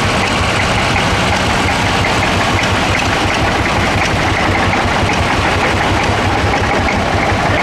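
Engines of several small vintage tractors running steadily as they drive slowly past close by, a dense, even chugging with no break.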